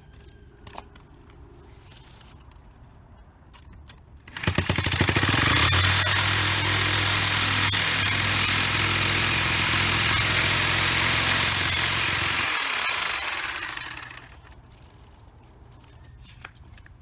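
A small engine starts abruptly about four seconds in, runs steadily with a loud hiss for about eight seconds, then shuts off and winds down.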